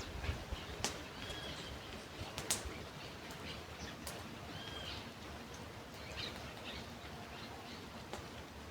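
Wild birds calling outdoors: one bird repeats a short high call about every three seconds while others chirp here and there, over a steady low background hiss. A few sharp clicks come in the first half.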